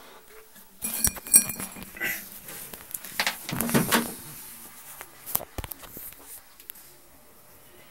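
Rustling, scraping and knocking from the camera being handled and moved in a cramped space, a cluster of it from about a second in to about four seconds, then one sharp knock a little after five seconds.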